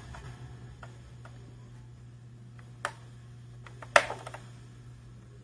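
Mechanical clicks from the push buttons of a vintage Philips RH707 receiver being pressed: a few light clicks, a sharper one near three seconds and the loudest about four seconds in, followed by small ticks. Under them runs a low steady hum while the radio's sound is cut off during switching.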